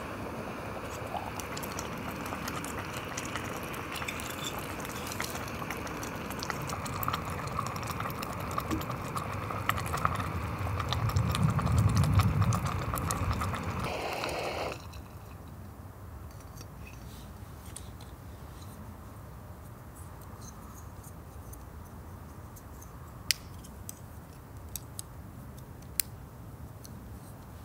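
Outdoor noise with wind rumbling on the microphone, swelling loudest a little before it cuts off abruptly about halfway through. After that comes a quieter background with scattered small clicks and taps.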